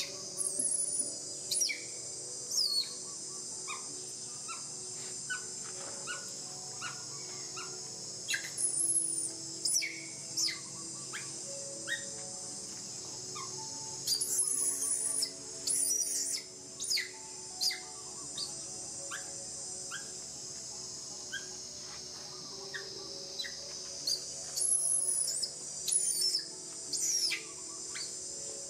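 Baby macaque crying as it is massaged: shrill squeals that drop sharply in pitch, coming in short clusters several times over.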